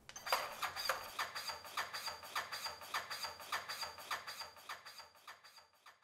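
Defibtech Lifeline ARM automated chest-compression device running continuous compressions: its piston mechanism strokes in a quick, even rhythm of about three beats a second over a steady high whine, fading somewhat near the end.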